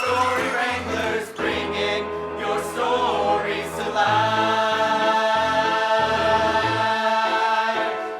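Closing bars of a song, with a moving bass line, settling into a long held final chord about four seconds in that ends near the end.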